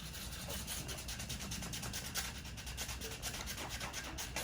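Quick repeated hand strokes rubbing over the underside of a car's plastic front bumper, prepping its surface before a front lip is fitted.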